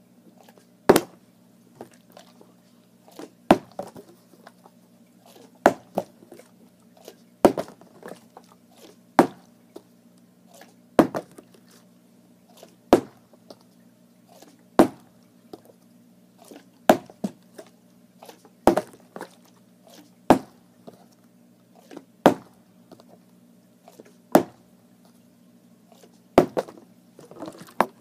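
Partly filled plastic water bottle being flipped over and over, knocking down on the floor about every two seconds, some fourteen times, with softer knocks and handling noises between.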